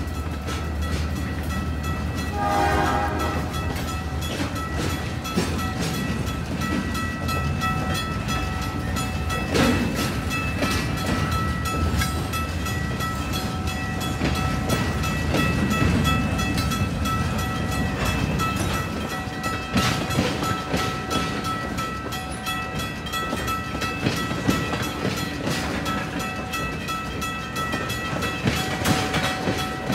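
Ann Arbor Railroad freight train passing: diesel locomotive rumble and rail cars rolling over the track, with scattered sharp clanks. A short horn sound comes about three seconds in.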